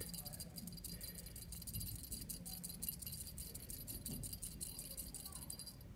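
Cat teaser toy jingling faintly and quickly as it is waved about, many small rapid ticks.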